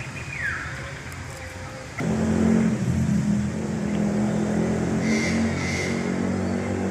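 A motor engine running steadily, a low drone that starts abruptly about two seconds in.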